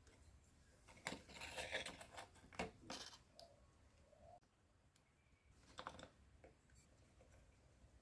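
Faint clicking and scraping of a small screwdriver driving small screws through thin aluminium Pepsi-can strips, with the can metal crinkling as it is handled. A run of clicks starts about a second in and lasts a couple of seconds, and a shorter burst comes near six seconds.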